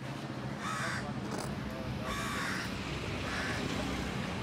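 A crow cawing three times, each caw short and harsh, about a second apart. A short clink sounds between the first two caws.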